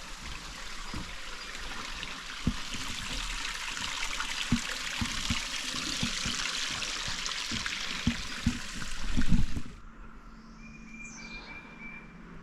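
Water trickling and splashing steadily, as from a small creek or waterfall, with scattered soft thumps. The water sound cuts off suddenly about ten seconds in, leaving a quieter backdrop with a brief chirping call.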